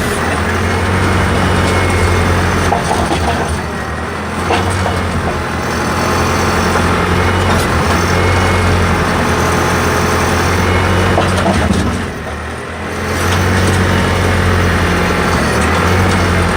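Backhoe engine running steadily with a strong low hum while the digging arm works. The sound eases briefly about four seconds in and again about twelve seconds in.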